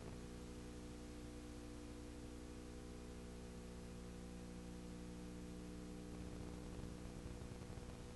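Steady low electrical hum with a faint hiss: the background noise of a blank stretch of recording, with nothing else happening.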